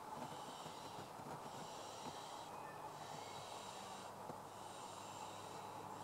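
Young barn owls in the nest giving their low rasping, hissing begging calls, one after another about every second and a half with short breaks between.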